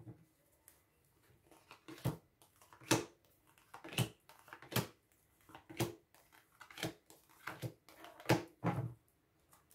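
Oracle cards being dealt one at a time from the deck and laid down on a wooden tabletop: a string of short taps and slaps, roughly one a second.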